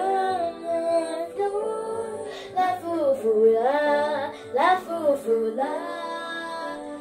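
A young girl singing held, gliding notes into a handheld light-up karaoke microphone, over a pop backing track.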